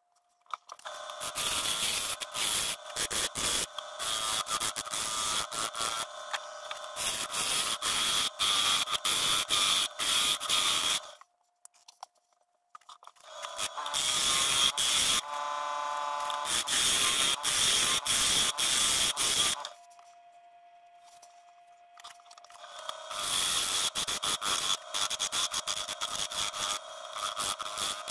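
A turning tool cutting a spinning cherry-burl and epoxy blank on a wood lathe: a rough cut full of rapid clatter as the edge meets the cracked, uneven wood and resin. It starts about half a second in, and the cutting stops twice, leaving only the steady hum of the running lathe.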